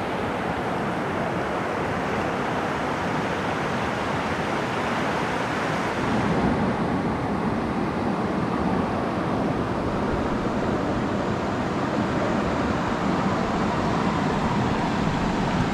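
Steady rush of a rocky mountain stream's flowing water. About six seconds in, the high hiss fades and the rush turns deeper and fuller.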